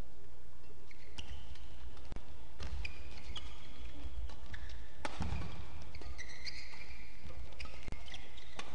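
Badminton rackets striking a shuttlecock in a fast doubles rally, sharp hits every second or two, with court shoes squeaking on the court mat in between.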